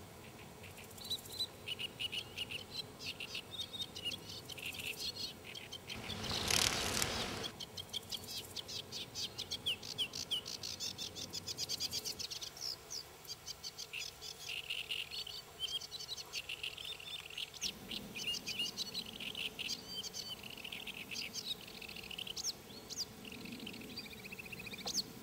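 Small birds chirping, many short high chirps in quick runs over a quiet outdoor background. A brief rush of noise about six seconds in.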